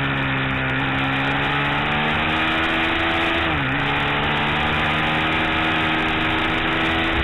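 KTM 990 Super Duke R's V-twin engine running steadily on the move, its pitch creeping slightly upward, then dipping briefly and recovering about three and a half seconds in.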